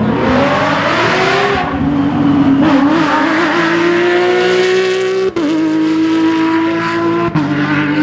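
Porsche 997 GT3 rally car's flat-six engine accelerating hard through the gears, loud, its note climbing with short breaks at upshifts about five and seven seconds in.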